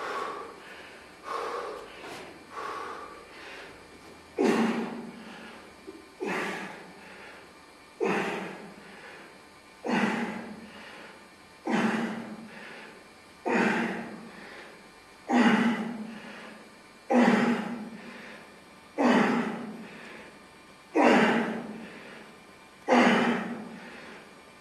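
A man's hard breathing during one-arm dumbbell rows: after a few softer breaths, a short, forceful grunting breath out with each pull, about every two seconds, eleven in all.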